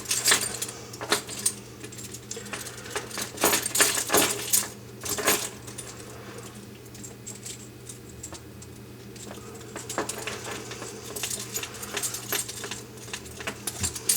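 Small plumbing parts and tools clicking and clinking as they are handled for a plastic water line's compression fitting, in scattered sharp clicks that bunch together in the first few seconds and again near the end. A low steady hum runs underneath.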